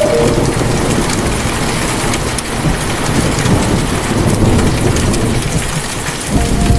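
Steady rain pattering down, with a low rumble of thunder underneath.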